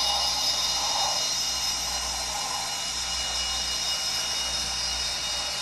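The sound decoder in an N scale Rapido Turbo Train model plays its gas-turbine engine sound through the model's small speaker: a steady high whine over a hiss as the train creeps along at its slowest speed step.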